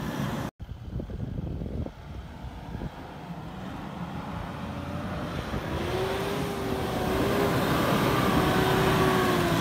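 Mitsubishi Pajero Sport's engine working hard as the SUV ploughs through soft dune sand, wheels throwing sand. A steady drone builds louder over the second half. A brief cut-out comes about half a second in.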